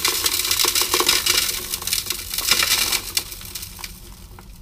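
Pay dirt gravel and river stones rattling and grinding in a quarter-inch classifier screen as it is shaken, a dense gritty noise full of small clicks that dies down after about three seconds.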